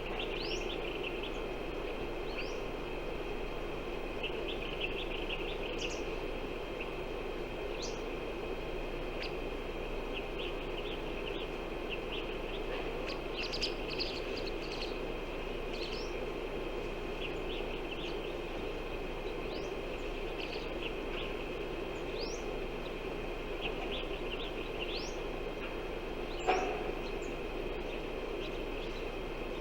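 Small birds chirping in scattered short, upward-sweeping calls over a steady outdoor background noise. One louder sharp sound stands out near the end.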